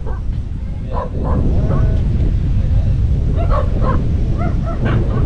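Steady low rumble of wind buffeting the microphone in a thunderstorm, with short high yelps from an animal in small groups, about a second in and again in the second half.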